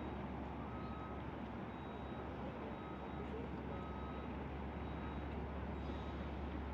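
Steady low rumble of heavy machinery or vehicles, with a faint reversing alarm beeping about once a second.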